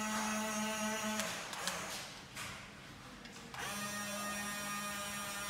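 Small electric gear motors of a Huina RC excavator whining at a steady pitch as they drive the boom and arm. The whine runs in two stretches: the first stops about a second in, the second starts about three and a half seconds in.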